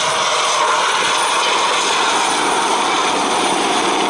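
Eurocopter EC120 Colibri helicopter flying past low, a steady turbine and rotor noise with no break.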